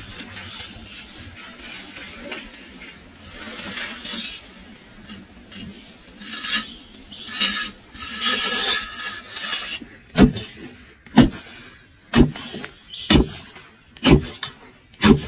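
Hand tools working pallet wood: scraping and rasping strokes that grow into bursts about a second apart. In the last third come six sharp knocks on wood, one each second.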